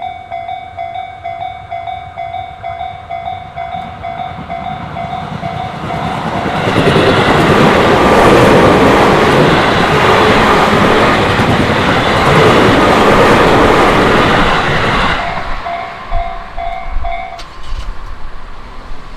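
Japanese level-crossing warning bell ringing in steady, rapid pulses, then a Tobu Tojo Line electric train passes over the crossing for about eight seconds, loud, its wheels clattering over the rail joints and covering the bell. The bell is heard again briefly after the train and stops about two seconds before the end.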